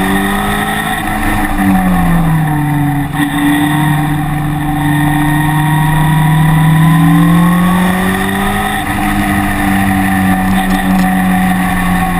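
Engine of a track-day vehicle lapping a circuit, its pitch dropping about one and a half seconds in, climbing steadily under acceleration, then dropping again near the end as it slows for corners, over a steady hiss of road and wind noise.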